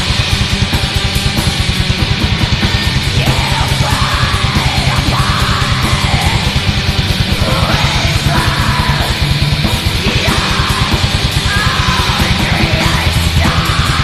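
Black metal: rapid, relentless drumming under dense distorted guitars, with harsh screamed vocals coming in about three seconds in.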